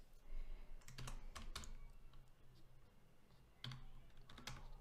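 Computer keyboard being typed on in two short faint bursts of key clicks, about a second in and again near the end.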